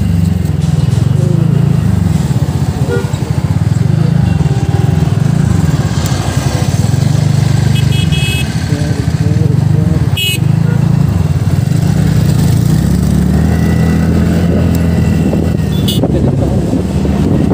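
TVS NTorq 125 scooter's single-cylinder engine running under way, its pitch rising and falling with the throttle. A short horn toot comes about eight seconds in.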